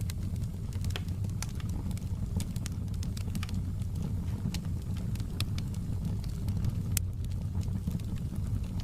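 Wood fire burning in a fireplace: a steady low rumble of flames with irregular sharp crackles and pops, one of the louder pops about seven seconds in.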